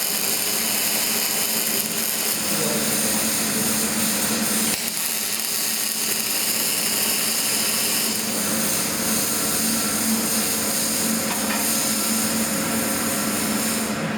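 Electric arc welding in progress: a steady, loud hiss over a low hum that cuts off abruptly near the end as the arc stops.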